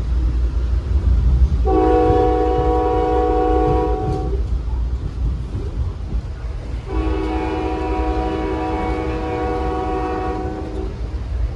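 Amtrak P42DC locomotive's air horn sounding two long blasts, the second longer, over the steady low rumble of the moving passenger train.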